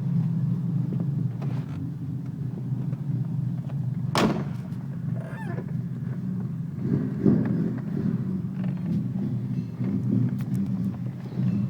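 Car engine running at a steady idle with a deep, even rumble. A single sharp click comes about four seconds in.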